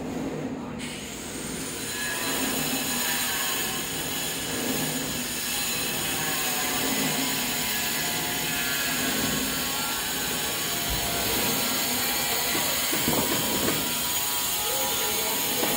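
Concrete mixer starting up and running steadily, its rotating drum giving a continuous mechanical rumble with faint ringing metallic tones.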